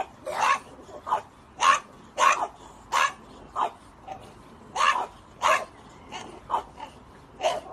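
French bulldogs barking during play: a run of short, sharp barks, about two a second, with a brief pause near the middle.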